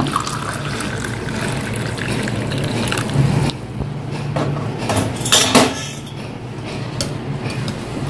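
Herbal decoction (kashayam) poured in a steady stream from a steel vessel into a glass tumbler, filling it over about three and a half seconds. Then come a few sharp clinks of metal and glass dishes, the loudest about five and a half seconds in.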